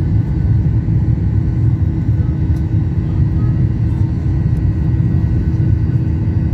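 Jet airliner's turbofan engine and airflow heard from inside the cabin beside the wing during climb-out after takeoff: a loud, steady low rumble with a steady hum running through it.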